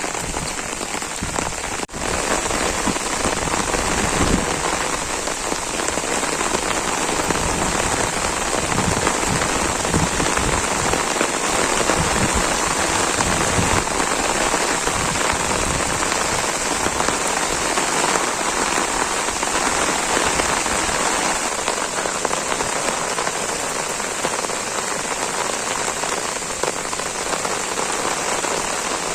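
Heavy, steady rain falling continuously, with a brief dip about two seconds in and a few low thumps in the first half.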